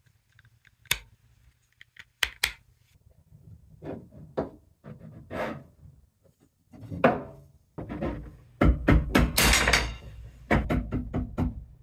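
Hard plastic 3D-printed parts being handled and test-fitted: a string of clicks, knocks and thunks with some short scraping strokes, busiest about two-thirds of the way through.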